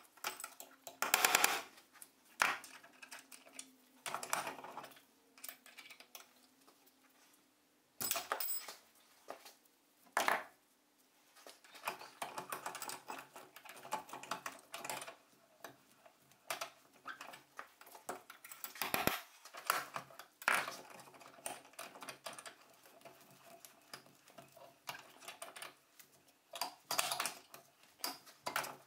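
Hand work on a small steel part clamped in a bench vise: irregular metallic clicks, taps and short scrapes, stopping and starting.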